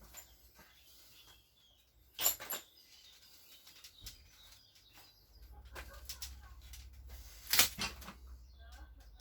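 Handling noise while working on the engine: two pairs of sharp knocks, about two seconds in and again near the end, with lighter clicks and a faint low hum in between.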